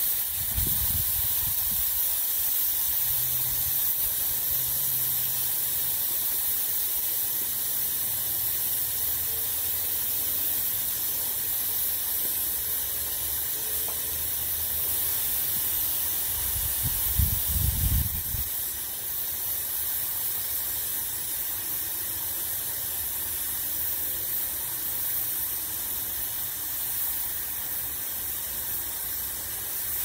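Stuart beam steam engine running on steam at 40 psi boiler pressure, with a steady hiss of steam. Two brief low rumbles come through, one near the start and one about halfway through.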